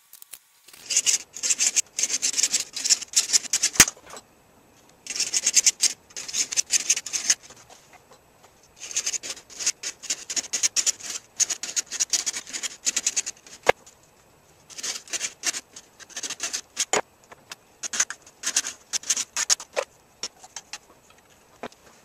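Coping saw cutting through the plastic shell of a Sphero 2.0 robot ball along its seam, in quick back-and-forth strokes. The sawing comes in runs of one to four seconds broken by short pauses, with an occasional sharp tick.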